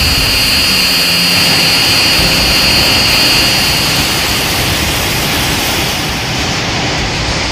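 Loud sustained rushing sound effect with a steady high-pitched whine, fading out near the end.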